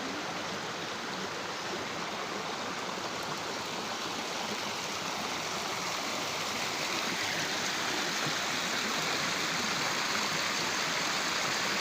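Steady rush of river water flowing over a waterfall, growing slightly louder in the second half.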